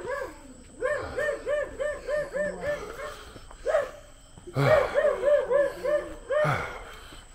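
A dog barking in fast runs of short, high yaps, about five a second, two runs with a short pause between them.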